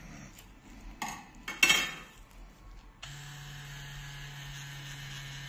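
A few clinks and a loud clatter in the first two seconds, then about three seconds in a pen-style tattoo machine switches on and runs with a steady low buzz as the needle goes into the skin.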